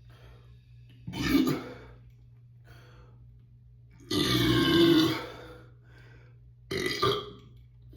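A person burping loudly three times after chugging beer: a short burp about a second in, a long drawn-out one a few seconds later, and a short one near the end.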